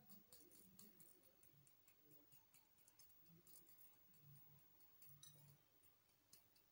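Near silence, with faint scattered ticks.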